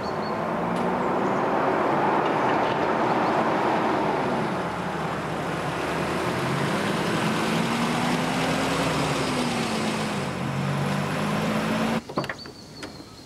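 Old truck's engine running as it pulls out and drives past, its pitch rising and then falling again around the middle. About twelve seconds in the engine sound cuts off, leaving a quieter background with a few sharp clicks.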